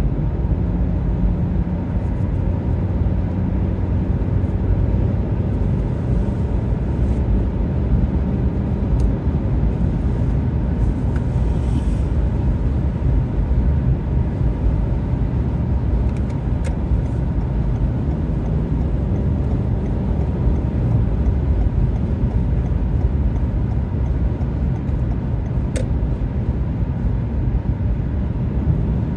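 A car driving at highway speed, heard from inside the cabin: a steady low rumble of tyres on the road and engine drone.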